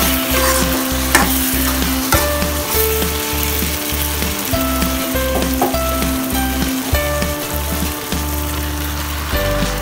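Shrimp in tomato sauce sizzling in a wok as a metal spatula stirs and scrapes the pan, with scattered sharp clinks. Background music with a steady bass pattern plays along.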